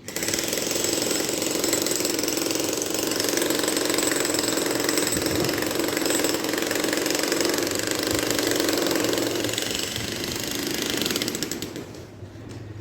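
Jackhammer hammering rapidly, starting suddenly and stopping about a second before the end.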